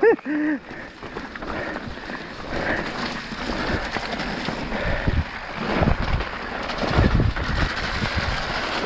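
Mountain bike running down a wet, rough trail: steady tyre and drivetrain rattle with wind rushing over the microphone. Heavy jolts from bumps land around five to seven seconds in. A brief pitched wail rises and falls in the first half second.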